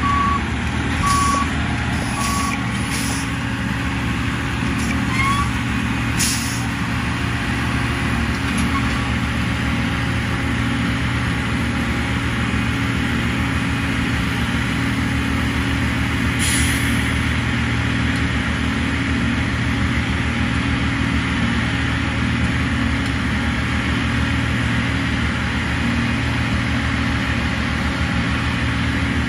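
Diesel engine of a rail-bound track maintenance machine running steadily at idle. There are a few short high warning beeps in the first three seconds and an occasional brief metallic clank.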